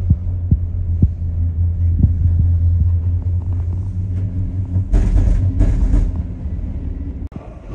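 Steady low rumble inside a moving ski-lift gondola cabin, with a few light knocks, then two louder rushes of noise about five and six seconds in as the cabin passes a lift tower's sheave wheels. The sound cuts off suddenly near the end.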